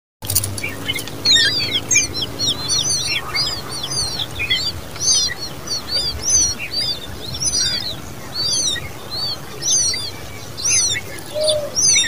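Common babbler nestlings begging at the nest as an adult feeds them: a rapid run of thin, high chirps, several voices overlapping.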